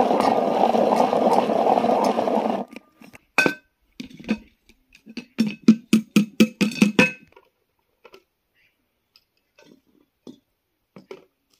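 A hand-pull vegetable chopper whirring steadily for about two and a half seconds as it chops onion, then stopping. About a second later comes a single knock, followed by a quick run of about ten ringing knocks as the chopper bowl is tapped against the rim of a metal pressure-cooker pot to shake out the chopped onion.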